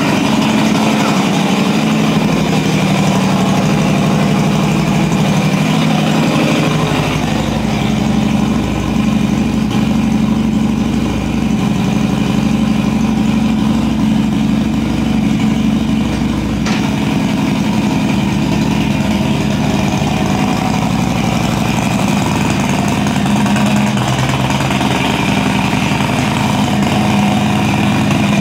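Harley-Davidson Road Glide's big-bore 131 cubic inch V-twin running steadily just after a cold start, loud through a Road Rage III exhaust.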